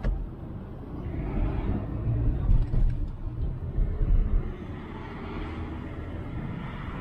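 Toyota RAV4 driving at highway speed in a snowstorm: a steady low rumble of tyres, engine and wind. It swells louder for a few seconds in the middle, and there is a short click at the very start.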